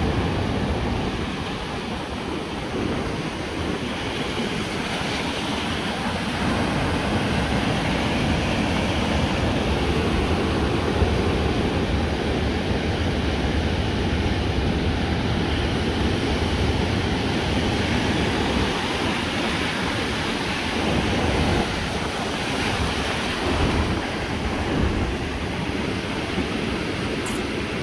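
Atlantic surf breaking and washing in over the shore and around a concrete breakwater, a steady rushing wash, with wind buffeting the microphone.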